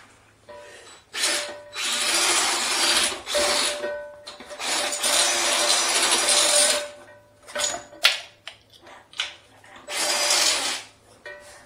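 Power drill spinning a flexible-shaft drain cleaner down a blocked washbasin drain, run in three bursts of two to three seconds with short blips between.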